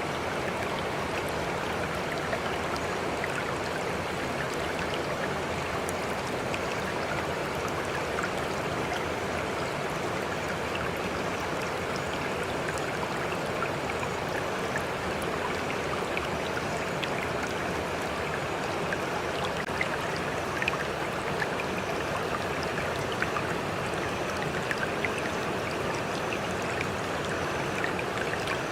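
Water flowing steadily, with small scattered splashes and drips over the continuous rush.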